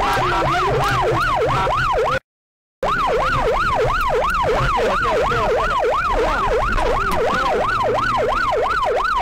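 Electronic emergency-vehicle siren on a fast yelp, sweeping up and down about three times a second over a low steady engine hum. It cuts out for about half a second a little after two seconds in, then carries on.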